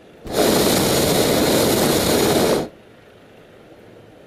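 Hot air balloon's propane burner firing in one blast of about two and a half seconds, starting and cutting off sharply.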